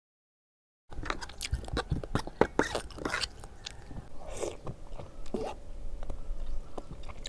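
A person chewing and slurping saucy Samyang carbonara ramen noodles with enoki mushrooms, with many small wet mouth clicks. It starts abruptly about a second in, after dead silence.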